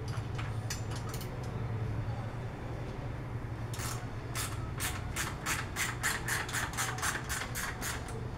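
Hand work on bicycle parts: a regular run of short rasping strokes, about three a second, starting a little under four seconds in, over a steady low hum.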